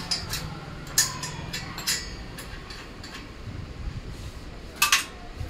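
Metal clicks and clinks from hand-fitting parts on the lower frame of a sewing machine treadle stand: a few sharp clicks about a second apart, then a louder double clink near the end, over a low steady background hum.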